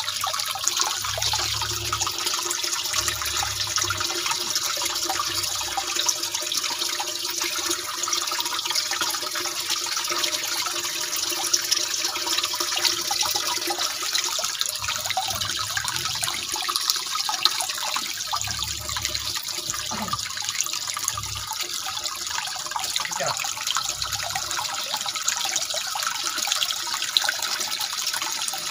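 Water running and trickling steadily into a fish tank, an even splashing hiss.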